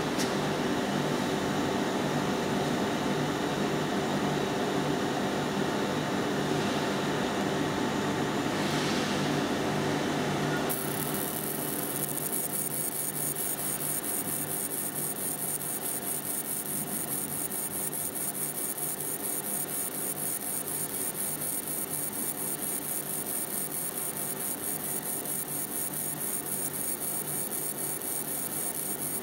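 Laser marking machine running with a steady fan-like hum. About ten seconds in a high-pitched buzz joins it and holds steady: the galvo scanner at work while the laser marks the part.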